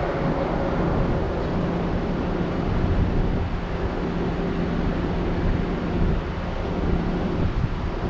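Motor vehicle running: a steady rush of road and wind noise with a low, even hum, and wind buffeting the microphone.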